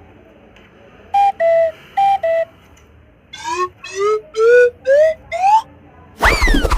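Cartoon sound effects: a two-note high-low tone played twice, then five short whistle-like rising glides, each starting higher than the last. Near the end comes a loud falling whistle with a thump.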